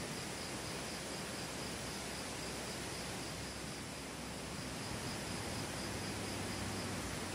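Steady outdoor background hiss with an insect chirping in quick, even high-pitched pulses, about four a second, pausing briefly about halfway through.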